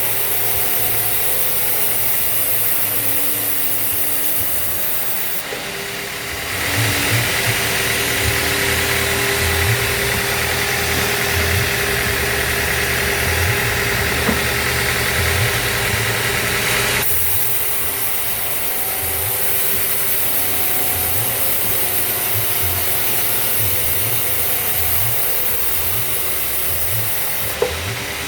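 Band sawmill machinery running steadily, with an engine-like drone. About a quarter of the way in the sound gets louder and brighter for roughly ten seconds, then settles back to its earlier level.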